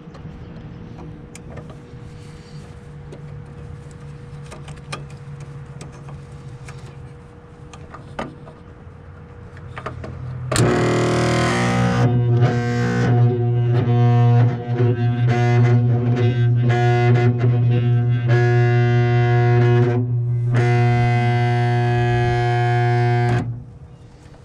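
A Lennox gas pack's inducer motor is powered back up. A quieter steady hum runs for about ten seconds, then a loud, steady electrical buzz starts abruptly and stops just as abruptly some thirteen seconds later, its overtones stuttering. The unit is suspected of having a locked-up inducer.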